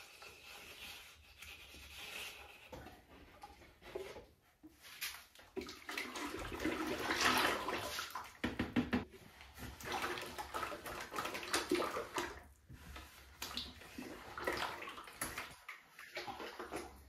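Liquid sloshing and splashing in uneven swells, with small knocks, loudest in the middle.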